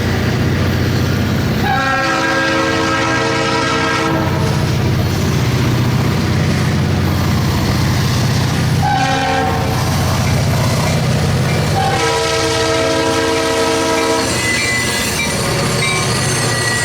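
Diesel freight train's locomotive air horn sounding a long blast, a short one and another long one over the steady rumble of the passing train.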